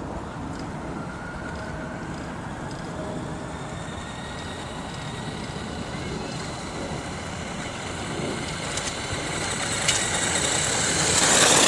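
Brushed electric motor whine and drivetrain of a RedCat Volcano EPX 1/10-scale RC monster truck driving toward the microphone, with its tyres crunching on gravel. It grows steadily louder and is loudest near the end as the truck comes up close.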